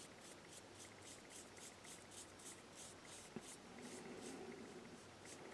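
Faint, rhythmic scratching of a small paintbrush stroking red paint onto carved wood, about three to four strokes a second, thinning out after about three and a half seconds.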